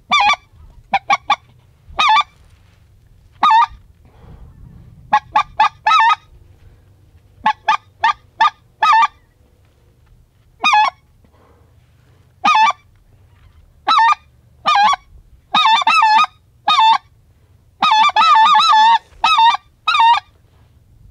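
Goose honking: loud single honks every second or so, with a quicker run of honks near the end.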